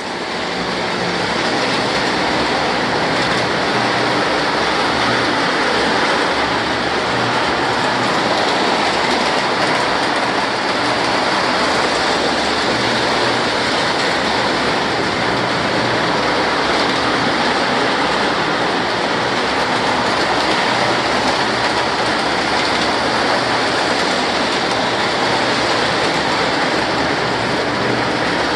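Three O-gauge electric model trains running at once on the layout: a steady whirring rumble of small electric motors and metal wheels on three-rail track, with a low hum underneath.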